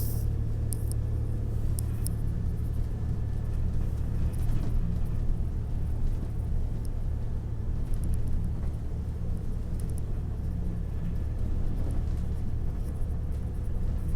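A car on the move: a steady low rumble of engine and road noise, with a few light ticks here and there.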